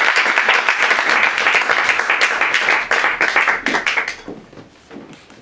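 Audience applauding, the clapping dying away about four seconds in.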